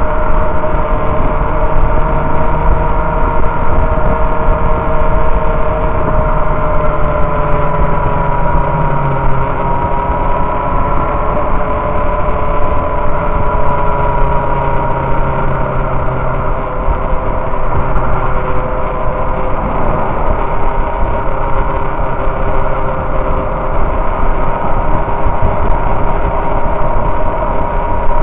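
Sport motorcycle's inline-four engine running steadily at highway cruising speed, its note drifting slightly in pitch, under heavy wind and road noise at the onboard microphone.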